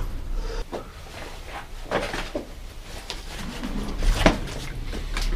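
Scattered clicks and knocks of a bicycle wheel and tyre being handled at the workbench, with a sharper knock about four seconds in.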